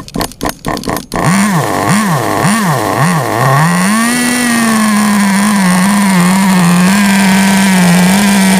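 Nitro RC car's small glow-fuel engine: a rapid run of clicks, then about a second in the engine fires, is blipped up and down four times, and settles into running steadily at high revs with a slight waver. The engine is still being broken in on a very rich mixture.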